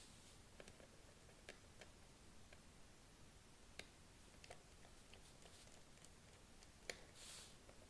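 Near silence broken by faint, scattered small clicks of a screwdriver and tiny screws being worked on a laptop's screen bezel, with a sharper click near the end followed by a brief rustle.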